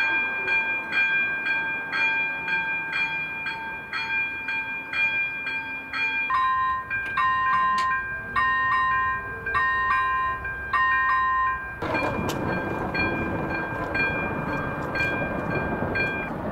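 Level-crossing electronic warning bells ringing with an even ding about twice a second. About six seconds in, a different two-tone bell takes over with a slower beat, then another bell about twelve seconds in. With the last bell, a loud rushing noise joins.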